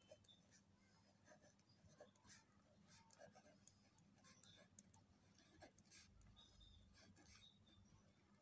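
Faint scratching of a pen writing on lined notebook paper, in short irregular strokes.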